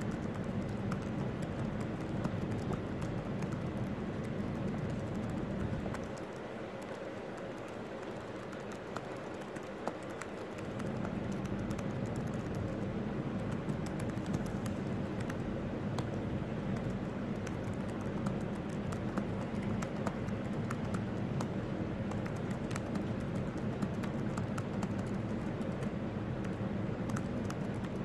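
Fast, continuous typing on a laptop keyboard: a rapid patter of key clicks as element names are entered one after another, over a steady low hum that drops away for a few seconds about a quarter of the way in.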